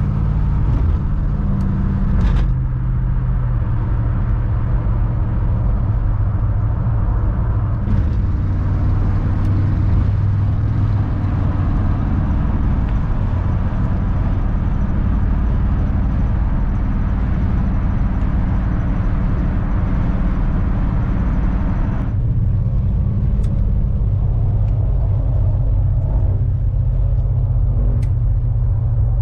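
Cabin sound of a 1968 Buick LeSabre cruising at motorway speed: the steady low rumble of its 350 cubic-inch V8 with road and tyre noise. About three-quarters of the way through the higher road hiss drops away abruptly.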